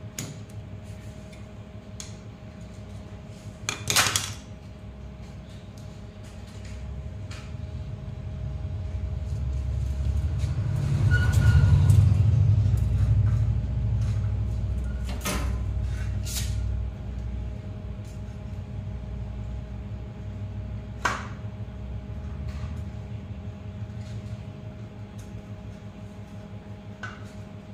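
A few sharp clicks and knocks from the aluminium window frame and hand tools being handled, the loudest about four seconds in. Under them a low rumble swells and then fades away over about fifteen seconds, over a steady faint hum.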